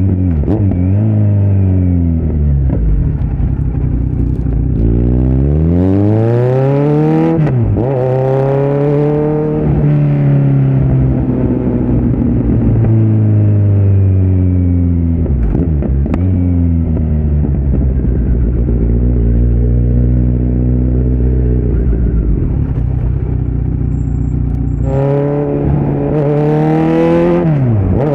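2018 Kawasaki Z900's inline-four engine through a Yoshimura muffler and Delkevic headers with no dB killer, riding under load: the engine note climbs sharply and drops back several times as the bike accelerates and shifts up, with steadier stretches where the pitch eases slowly, and another hard rise near the end.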